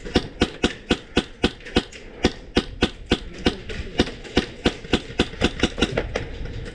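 Airsoft rifle firing single shots in a steady run, about three to four a second, each a sharp clack.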